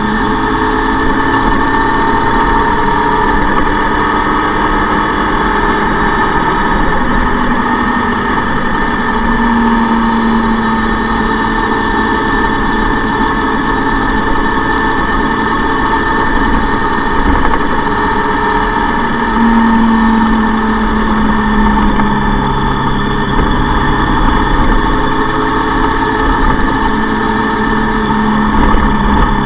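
Motorcycle engine running steadily while riding along at road speed, mixed with dense wind and road noise at the bike-mounted camera. Its pitch shifts a little a few times.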